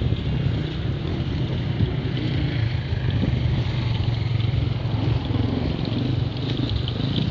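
Enduro motorcycle engines running, a steady low drone.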